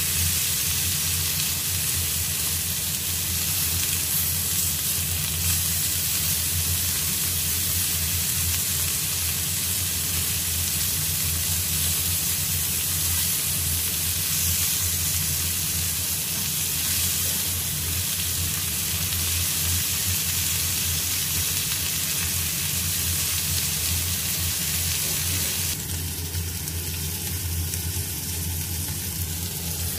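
Chicken drumsticks sizzling steadily on a ridged grill pan, with a low steady hum beneath. Near the end the sizzle drops a little.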